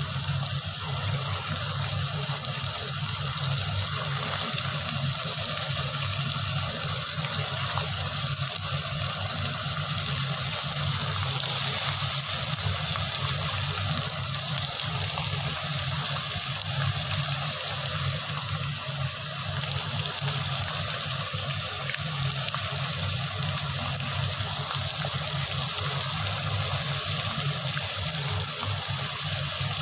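Water running steadily, as from a kitchen tap.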